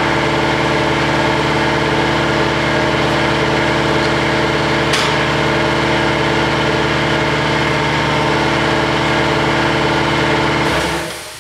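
Motor of a powered sheet-metal brake running with a steady hum, then switched off near the end and quickly winding down.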